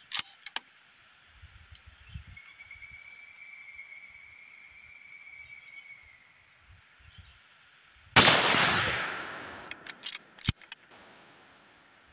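A single .223 rifle shot about eight seconds in, its report trailing off over a second or so. A few sharp clicks and a knock follow a couple of seconds later, and a few clicks come right at the start.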